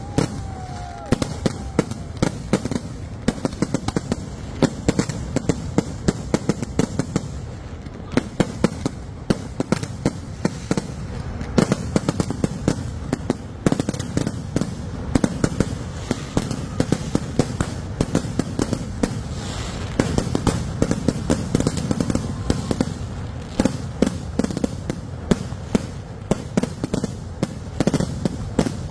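Kerala temple-festival fireworks (koothu vedikkettu): a continuous barrage of sharp bangs and crackling bursts, several reports a second, from shells fired off the ground and bursting overhead. A brief whistle sounds near the start.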